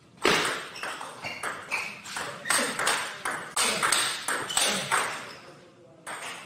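Table tennis rally: the ball clicking back and forth between the rackets and the table, two or three sharp hits a second. The hits stop about five seconds in, with one more knock just after six seconds.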